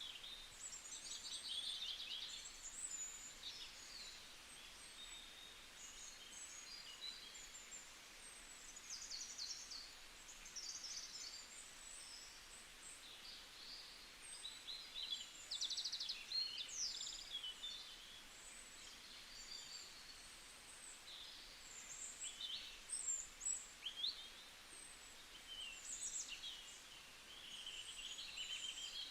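Several small birds singing and chirping at once, with many short trills and high chirps overlapping throughout, over a faint steady background hiss.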